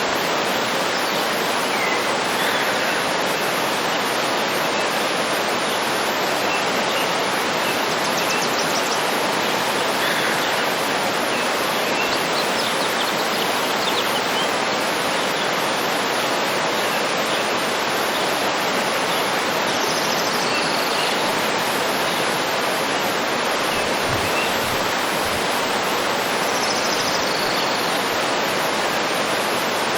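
Waterfall rushing in a steady, even roar, with faint scattered bird chirps over it.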